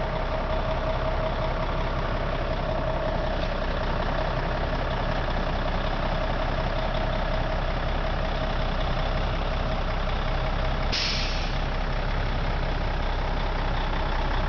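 Kenworth semi-truck's diesel engine running steadily at low speed, with a short burst of air hiss about eleven seconds in.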